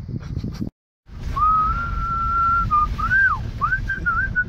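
A person whistling a tune: one clear melody line with a long held note, then quick rising and falling turns, over the low rumble of a car driving on a dirt road, heard from inside the cabin. The sound cuts out briefly just under a second in, before the whistling starts.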